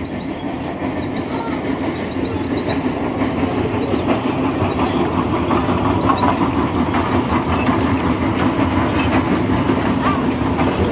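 G gauge garden railway train running along the track, its wheels clicking over the rails with a steady low hum, growing somewhat louder as it comes closer.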